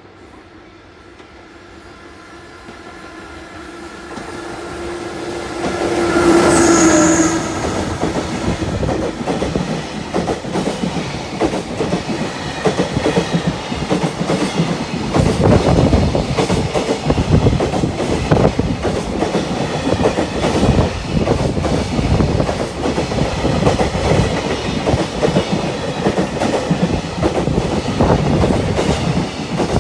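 A train approaches, growing steadily louder, and gives a short horn blast about six seconds in. It then passes close by, its wheels clattering rhythmically over the rail joints without a break for over twenty seconds.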